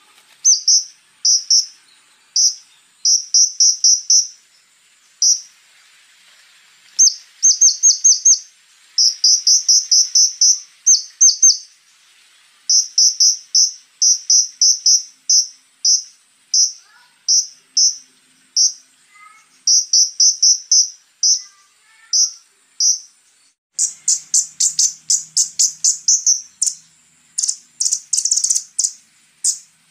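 Konin, a small flowerpecker, singing in rapid runs of sharp, high-pitched ticking notes separated by short pauses, over a steady thin high insect-like hum. The runs grow louder and faster near the end.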